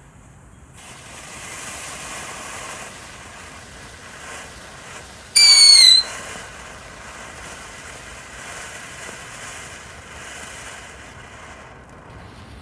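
Brothers Pyrotechnics 'Mystical' firework from a Bonfire Fantasy selection box, burning with a steady hiss that starts about a second in and dies away near the end. About five and a half seconds in, a loud shrill whistle sounds for about half a second.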